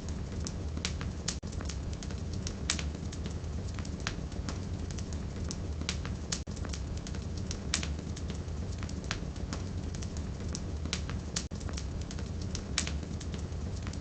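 Wood fire burning in a fireplace: a steady low rumble of flames with irregular crackles and pops from the burning firewood, several of them sharper and louder.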